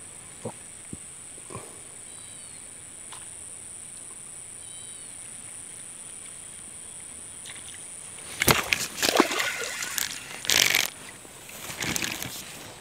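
A steady high insect drone, with a few faint clicks and two brief bird chirps. About eight and a half seconds in, loud rustling and knocking begins in several bursts as the camera is picked up and moved.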